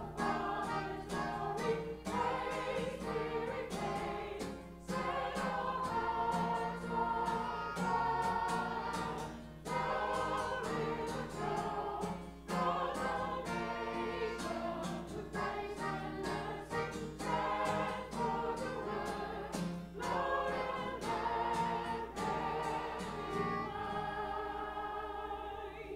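Small mixed church choir singing together in parts, in phrases of held notes with short breaths between, ending just before the close.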